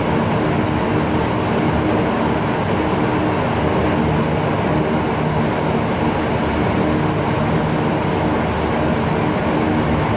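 Saab 2000's Rolls-Royce AE 2100 turboprops and propellers running at taxi power, heard inside the cabin as a steady drone with several held tones.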